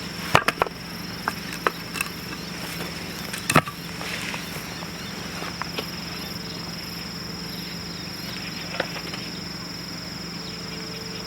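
A few sharp knocks and light clicks, the loudest about half a second in and about three and a half seconds in, over a steady high-pitched drone of insects.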